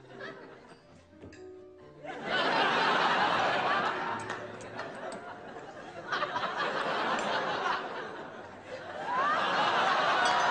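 Studio audience laughing, setting in loudly about two seconds in, easing off in the middle and swelling again near the end. Soft background music plays at the start.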